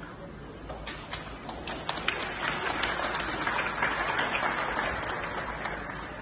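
Audience applauding: scattered claps start about a second in, swell into steady clapping, then die away near the end.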